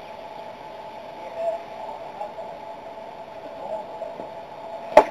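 Steady outdoor ballfield background, then one sharp smack near the end: a pitch popping into the catcher's mitt on a swinging strike.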